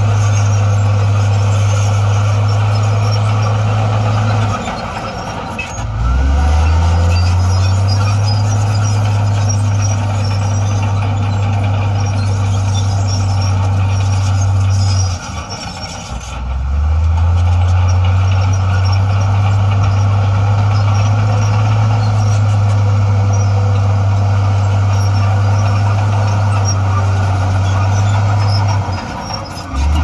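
Heavy diesel earthmoving machinery running with a loud, steady low engine drone. Twice the engine note drops away and then climbs back up in pitch as it is revved again under load.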